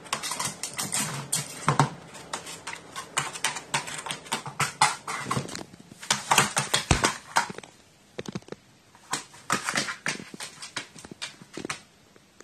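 A crow pecking and knocking at a small drum patched with silicone resin: rapid, irregular clusters of sharp taps, thinning out in the second half.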